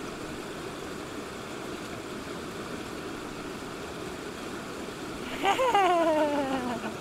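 River water rushing steadily. Near the end a long vocal sound, sliding slowly down in pitch, rises over the water.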